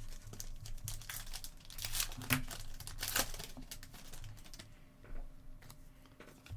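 Trading card pack wrapper crinkling as it is torn open and handled: a dense run of sharp crackles that thins out over the last couple of seconds.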